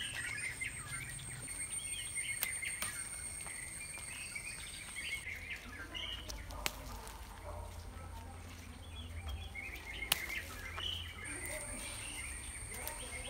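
Birds chirping and calling outdoors in tree cover, with a steady high-pitched whine that drops out for several seconds in the middle, and a few sharp clicks.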